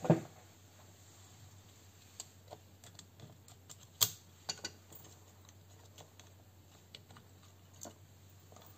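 Scattered, irregular small clicks and taps of parts and tools as an airsoft gun is taken apart, the sharpest click about four seconds in.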